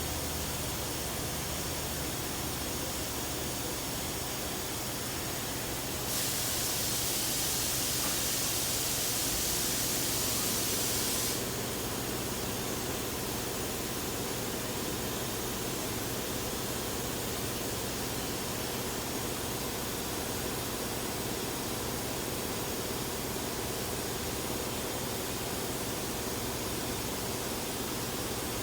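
2018 Ford F-150's 3.5-litre V6 idling, with a rough-idle fault. A louder hiss comes in about six seconds in and stops about five seconds later.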